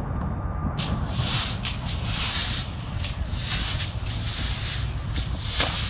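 Fireworks hissing and sizzling overhead: a run of about six separate half-second sizzles over a steady low rumble, with no big bang.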